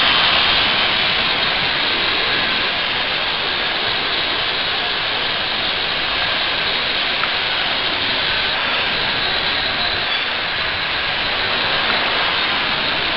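Small RC quadcopter's electric motors and propellers whirring steadily in flight.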